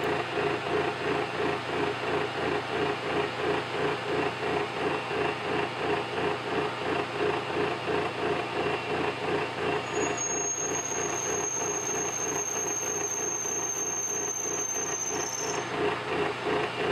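Metal lathe cutting a groove into a 316L stainless steel ring blank with a carbide cutting tool, running steadily with a throb about three times a second. From about ten seconds in, a high-pitched squeal rides on top of the cut and stops shortly before the end.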